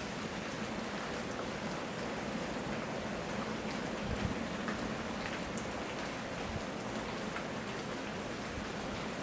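Steady rain falling, a continuous hiss with scattered individual drops pattering on surfaces, recorded on a phone microphone.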